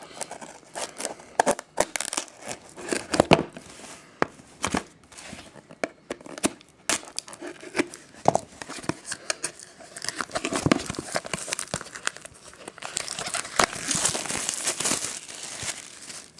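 Plastic wrapping on a trading card box being torn open and crinkled by hand, in irregular crackles and rips, with a longer stretch of tearing and crinkling near the end.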